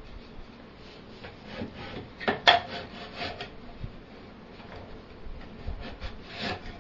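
Spinning-wheel parts being fitted by hand, the treadle bar slid through the treadles: rubbing and scraping with a few sharp knocks, the loudest about two and a half seconds in and more near the end.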